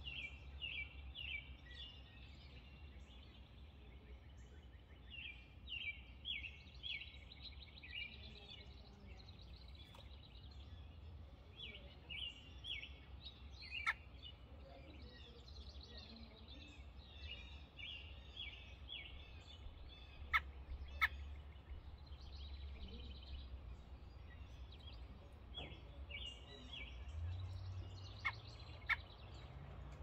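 Robins chirping in short runs of three to five quick high notes, repeated every few seconds. A few sharp clicks stand out, over a steady low rumble.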